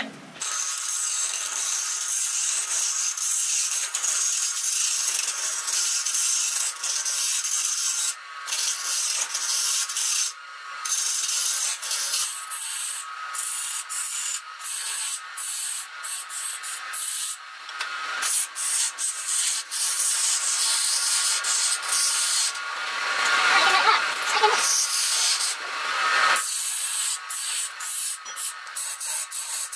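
A turning chisel cutting into a wood blank spinning on a lathe: a steady shaving, scraping noise broken by many short gaps as the tool comes off the wood. It grows louder and fuller for a few seconds about three-quarters of the way through.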